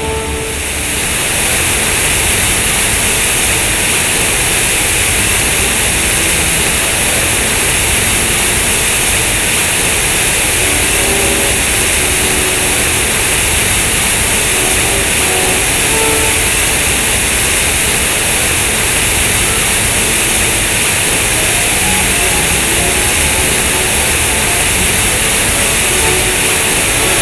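Water from a large concrete sculpture fountain pouring out of its square spouts and splashing into the pool: a loud, steady rush of falling water that swells in over the first second or two.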